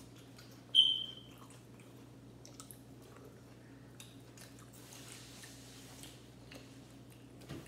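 Close-up eating sounds of people biting into and chewing chicken drumsticks: wet mouth noises and small clicks and smacks over a low steady hum. One sharp click about a second in is the loudest sound.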